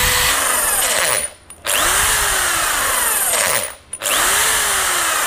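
Hitmin HMDV 13A 550 W corded hammer drill, set to hammer mode, running free in three short bursts: each time it spins up with a rising whine and winds down when the trigger is released. Its gearbox is noisier than the owner expects, which he takes for an issue in the gears.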